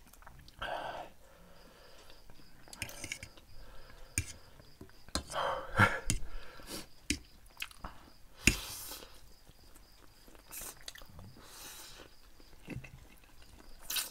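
Instant noodles being slurped and chewed up close, in short noisy bursts every few seconds, with a few sharp clicks; the loudest click comes about eight and a half seconds in.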